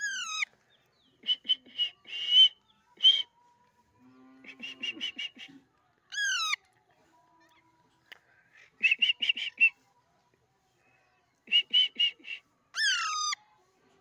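Alexandrine parakeet calls: three loud harsh calls that fall steeply in pitch, near the start, about six seconds in and near the end, with bursts of quick chattering notes, about five or six a second, between them.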